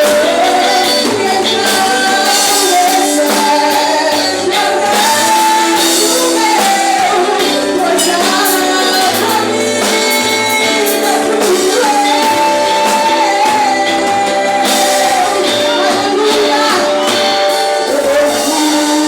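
Live worship music: a singing voice carrying a wavering melody over sustained band chords, with steady high percussion throughout.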